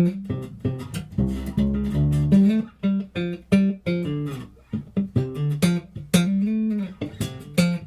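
Ibanez SR5FMDX Premium five-string electric bass being played: a run of quick plucked notes, a held low chord a little over a second in, and a note that slides up and back down near the end.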